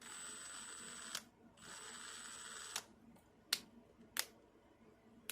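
Milwaukee 2962-20 impact wrench's trigger feathered lightly: a faint motor hiss with a thin high whine in two stretches of about a second each, each cut off by a click. Then a few separate sharp clicks from the tool's switches.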